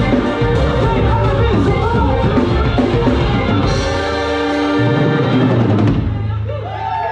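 Live band music: a drum kit keeping the beat under a bowed violin melody. The drums drop out about six seconds in, leaving held tones.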